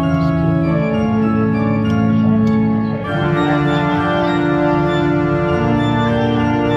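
Background music: sustained organ-like chords that change every few seconds.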